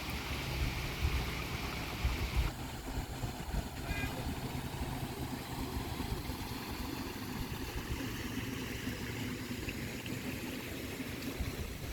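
Fast-flowing floodwater rushing, a steady deep rumble with hiss above it; the hiss thins abruptly about two and a half seconds in.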